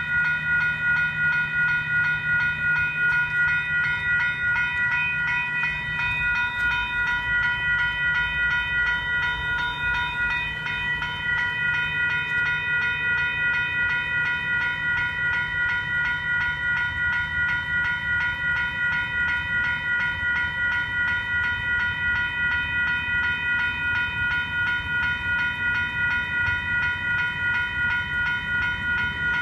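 Electronic railroad crossing bell (a WCH Type 1.5 electronic bell) ringing at an activated grade crossing, sounding an even, rapid train of bright dings. The rhythm is steady throughout, the warning that the gates are down and a train is approaching.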